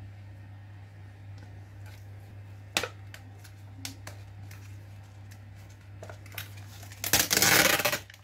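The paper-foil lid of an instant noodle cup being peeled back, a loud rough rustle lasting about a second near the end. Before it, a single sharp tap about three seconds in as the cup is handled, over a steady low hum.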